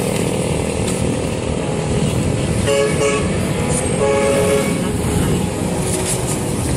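Street traffic noise with a vehicle horn tooting in short blasts about three seconds in and again about four seconds in.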